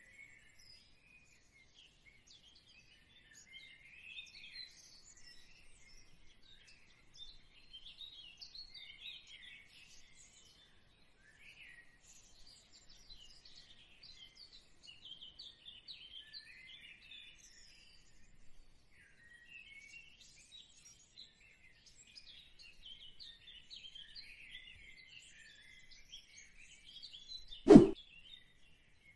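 Faint birds chirping and calling in irregular short notes throughout, as a background sound bed. Near the end, one loud sudden pop-like sound effect.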